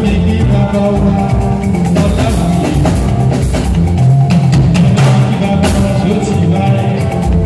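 Live band playing at full volume, with drum kit and bass keeping a steady beat, during a sound check.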